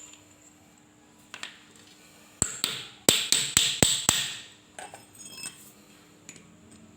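Hammer blows on metal during a 6201 bearing replacement on a handheld tile cutter: two sharp knocks about two and a half seconds in, then a quick run of about five more, each with a short metallic ring, followed by a few lighter taps.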